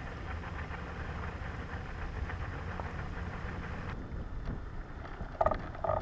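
Wind rumbling on a GoPro's microphone on a fishing kayak. It is a steady low buffeting whose hiss drops away abruptly about four seconds in. Two short high-pitched tones come close together near the end.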